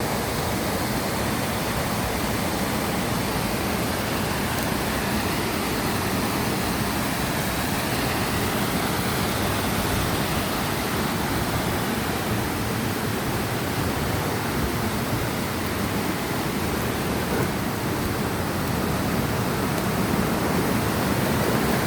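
Steady rushing of running water, a mountain stream or small waterfall: an even, unbroken hiss.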